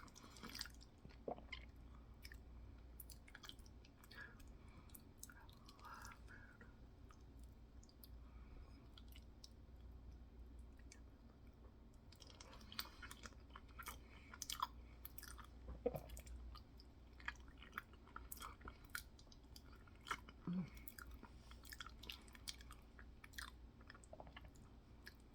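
Open-mouthed wet chewing of a soft mixture of potatoes, mac, beans and sauces, with many short sharp lip-smacking clicks that come thicker in the second half.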